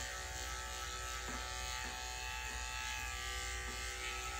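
Electric dog grooming clippers fitted with a number 10 blade, running with a steady buzz while trimming the dog's sanitary area.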